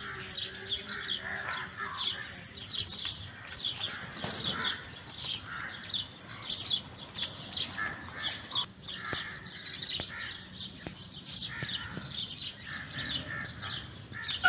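Small birds chirping in a dense, steady chatter of short high chirps, several a second.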